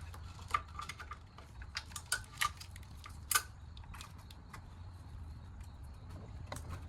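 Scattered small clicks and taps as wiring and plastic connectors are fed back through and snapped into place. Most of them fall in the first three and a half seconds, with a few fainter ones later, over a steady low hum.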